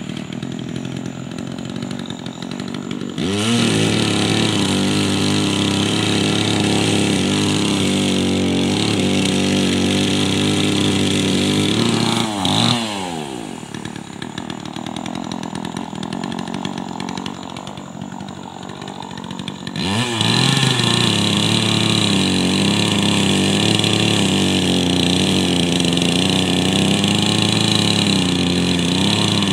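Craftsman chainsaw idling, then revved to full throttle about three seconds in and held there while cutting into a large white pine log. It drops back to idle about twelve seconds in, then revs up again near twenty seconds and keeps cutting.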